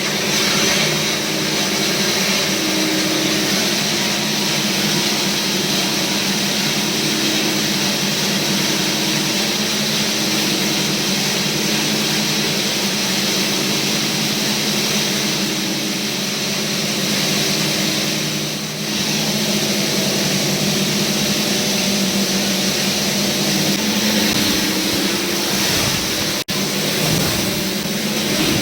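Plastic runners grinder with its cyclone blower running: a steady motor hum under a loud rush of air. There is a brief dip about two-thirds of the way through and a short break near the end.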